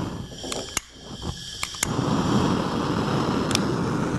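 A few sharp clicks, then about two seconds in a Bunsen burner lights and its flame runs with a steady rushing hiss.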